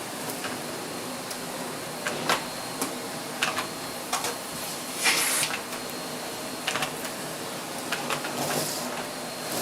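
Vacuum cleaner running with a steady whine, broken by irregular clicks and rattles and two short rushes as pieces of shredded paper are sucked up.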